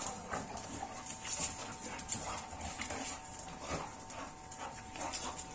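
Pit bull-type dogs whimpering and whining in many short cries, with a few light taps, as a male courts a female who is receptive for mating. A faint steady two-note hum runs underneath.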